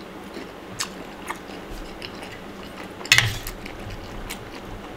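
Close-up chewing of a mouthful of blanched shrimp: wet crunches and mouth clicks at irregular intervals, with one louder sharp crunch about three seconds in.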